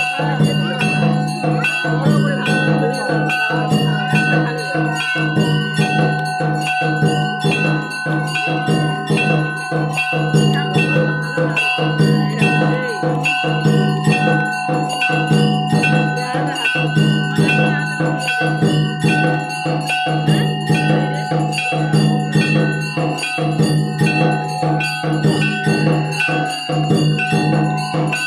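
Temple bells ringing continuously and rapidly during a Hindu evening arati, a dense run of quick strikes with several ringing tones held over them.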